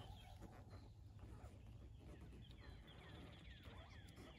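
Near silence with faint birdsong: a run of short, high chirps starting about halfway in.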